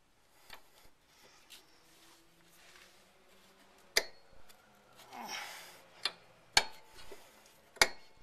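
Sharp metallic clicks and taps from a hand tool working the brake line and its retaining clip back into place on the rear strut bracket, the loudest about four, six and a half and eight seconds in, with a short scrape between them.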